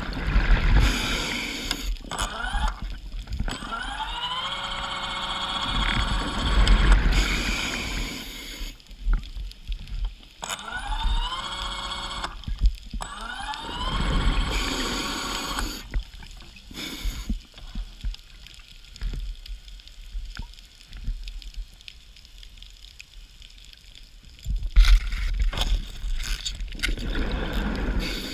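Underwater diver propulsion scooter heard underwater, its motor whine climbing in pitch several times as it speeds up, over a rush of gurgling water. The motor falls quiet for several seconds past the middle, then a louder burst of water noise comes near the end.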